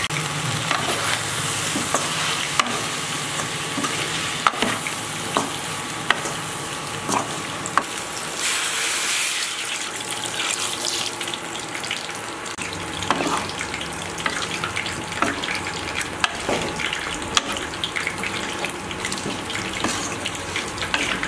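Chicken feet in masala frying and sizzling in a metal pot, with scattered clinks of stirring against the pot. About eight seconds in, water is poured onto them for a couple of seconds.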